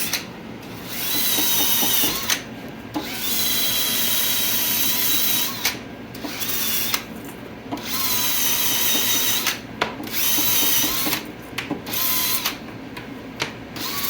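Small rotary power tool scuffing a leather filler piece for a saddle cantle: a steady high whine with grinding noise, switched off and back on about half a dozen times, rising briefly in pitch as it spins up at each start.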